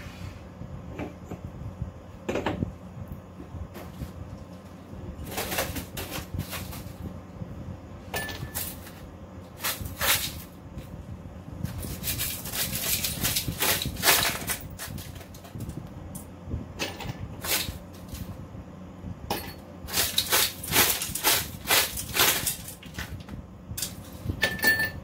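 Ice cubes being cracked loose from a plastic ice cube tray and clinking, in two runs of rapid clicks, with a few scattered knocks of dishes being handled before them.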